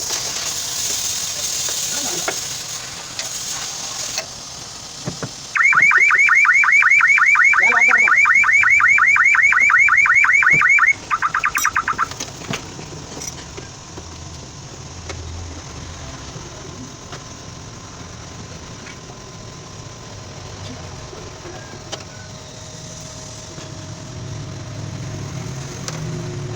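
Car alarm siren sounding with a loud, fast warble of about seven sweeps a second for about five seconds, then a few quick chirps before it stops. A steady high hiss comes before it in the first few seconds.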